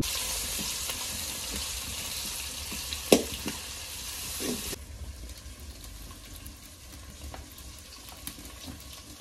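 Onions and spices sizzling as they fry in oil in an aluminium pot, with a metal spoon stirring and scraping through them. There is a sharp knock about three seconds in, and the sizzle drops to a quieter hiss about halfway through.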